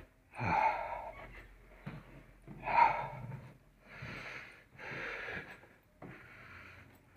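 A person breathing heavily and audibly, a run of about six breaths roughly a second apart, the second and fourth the strongest.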